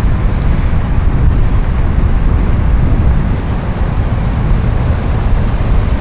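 Wind buffeting the camera's microphone: a loud, rough low rumble with no clear tones, holding throughout.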